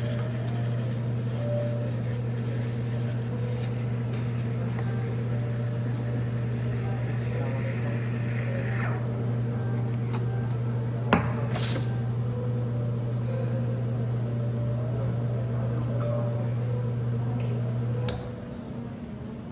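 Espresso machine pump humming steadily while a shot pulls into the cup, then cutting off near the end as the shot finishes. A single sharp click about halfway through.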